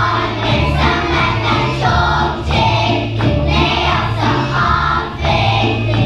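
Children's choir singing a song together over instrumental accompaniment with a steady bass line.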